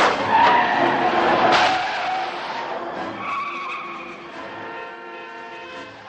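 A car's tyres skidding, loud at first and dying away over a few seconds.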